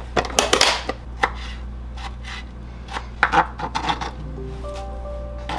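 Knife chopping food on a cutting board: a quick, irregular run of sharp strokes, thinning out toward the end.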